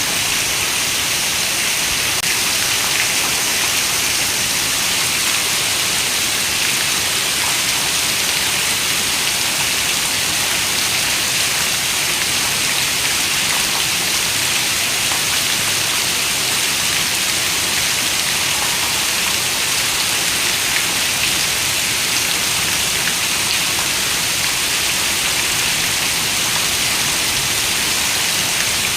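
Rain falling on a window, a steady, even hiss of many drops without change or thunder.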